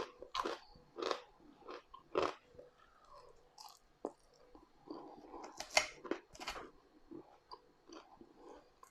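Close-miked chewing and crunching of food in the mouth, with irregular crisp crunches, the loudest few near the start and about two-thirds of the way through.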